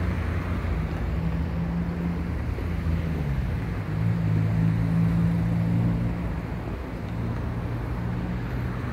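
Car engines running with a steady low hum as vehicles drive over the level crossing; the engine pitch dips and shifts about three seconds in, and the sound gets a little louder shortly after.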